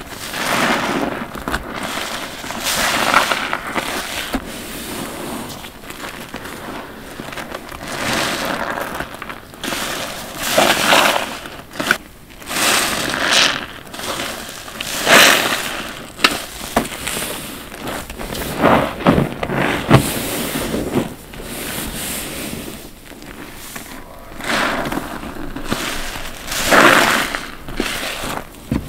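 Wet, soapy bath sponges being squeezed again and again, each squeeze a squelch with crackling foam. The squeezes come irregularly, a second or two to several seconds apart.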